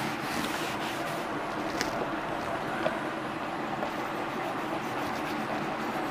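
A felt duster wiping a chalkboard, then chalk tapping and scraping on the board as a word is written, with a few faint ticks, over a steady background noise.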